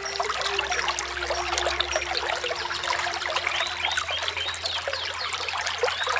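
Small waterfall splashing and trickling steadily, with a bird giving a quick run of repeated chirps in the second half.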